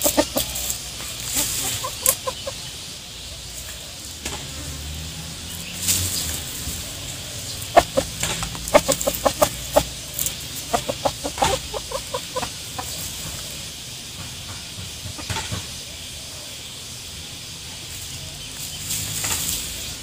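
Chicken clucking in runs of quick, soft clucks while foraging, with sharp rustles and scratches in dry leaf litter now and then.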